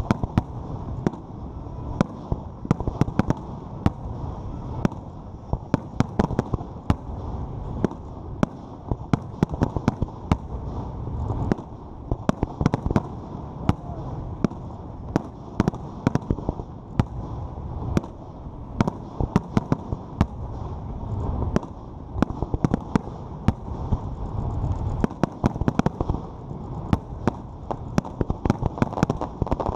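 Aerial fireworks bursting in a dense, continuous barrage: many sharp bangs, several a second, over a steady low rumble.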